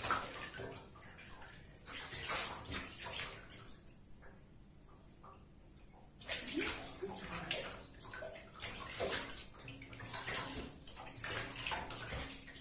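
Water splashing and sloshing in a bathtub as a wet cat is scrubbed by hand, in irregular splashes with a quieter lull of about two seconds in the middle.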